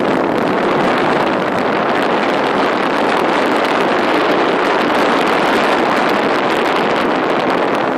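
Steady rushing noise of skiing downhill: wind on the microphone mixed with skis sliding over packed snow.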